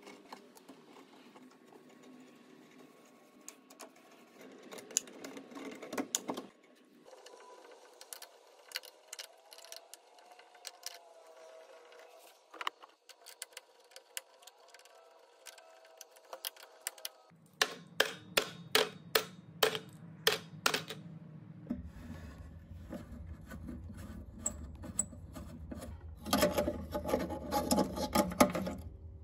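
A hand screwdriver backing out the screws of a wooden cabinet door's metal hinges: small metal clicks and scrapes of the driver and hardware. There is a quick run of sharp clicks past the middle and a dense flurry of clicking near the end.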